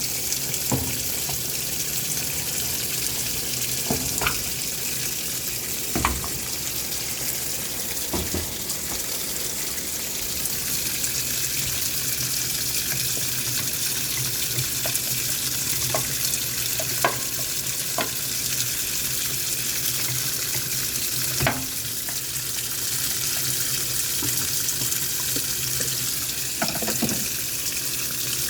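Washing machine filling: a steady hiss of water running in, over a low hum, with a few short knocks now and then.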